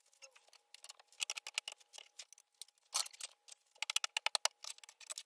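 Runs of light clicks and ticks, with a few sharper taps about three and four seconds in: small handling noises at a workbench.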